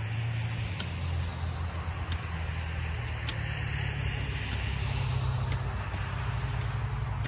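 Grub hoe chopping and scraping through soil and sod, heard as faint irregular ticks, over a steady low rumble that is the loudest sound.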